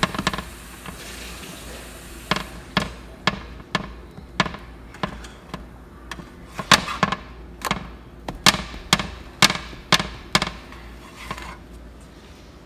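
A run of sharp tapping clinks, about two a second and sometimes in quick pairs, over a steady faint hiss; they begin about two seconds in and stop shortly before the end.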